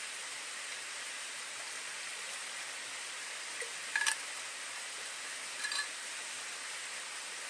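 Steady rush of flowing river water, with two short metallic clinks, about four seconds in and again a second and a half later, as a stainless steel water bottle is capped and laid down.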